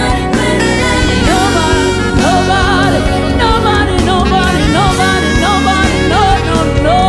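Gospel worship music: a lead line of melodic runs over a steady band backing, without clear words.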